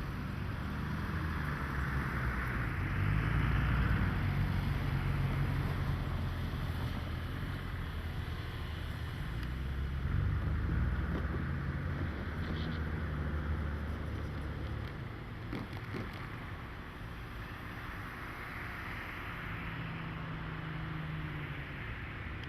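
JNR DE10 diesel-hydraulic locomotive's engine running as it works the line, a low throb under a rushing noise. It is louder in the first half and eases off about two-thirds of the way through.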